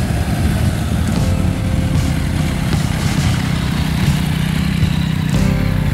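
Several motorcycles and a three-wheeled scooter riding slowly past one after another, their engines running steadily at low revs.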